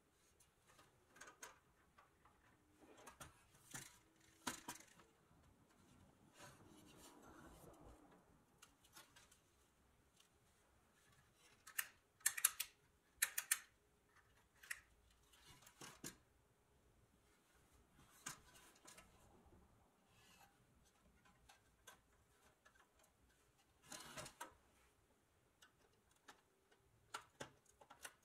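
Quiet, scattered metallic clicks and knocks from an old pressed-steel Kingsbury wind-up toy car being handled, turned over on a wooden bench and touched at its spring mechanism. The loudest are a few sharp clicks a little before the middle.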